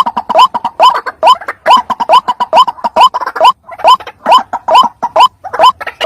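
White-breasted waterhen calling: a loud, fast, repeated 'ruak-ruak', each note a short rising glide, about two to three notes a second with one brief break halfway through. This is the bird's call as played to lure waterhens.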